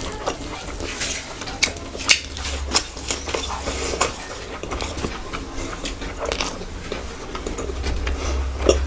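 Eating sounds from a mukbang meal: scattered sharp clinks and scrapes against a plate, with chewing, over a steady low hum.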